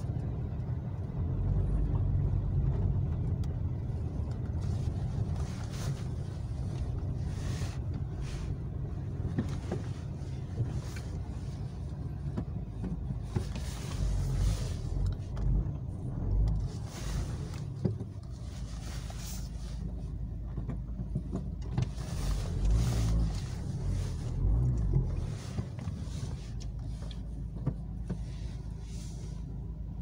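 Dacia Sandero Stepway heard from inside the cabin, driving slowly over a rough track: a steady low engine and tyre rumble, with short swells of hissing noise every few seconds as the car rolls over the rough surface.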